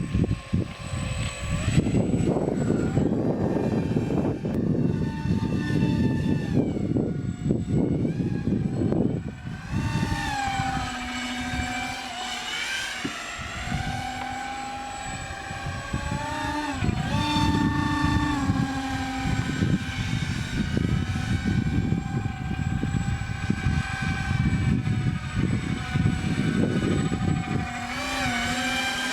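Electric motor and propeller of a homemade remote-control box plane running, its whine shifting up and down in pitch as the throttle changes, over a heavy low rumble that is strongest in the first third and last third.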